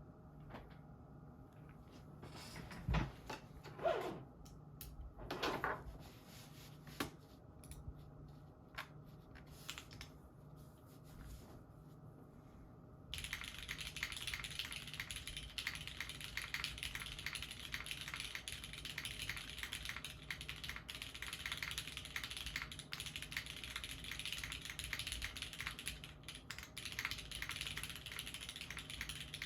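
Typing on a custom Sinanju mechanical keyboard with heavily broken-in, lubed Cherry MX Red linear switches, a full aluminium plate, an o-ring mount and GMK keycaps. A few scattered knocks and clicks come first, then steady, fast typing starts a little under halfway in and runs on.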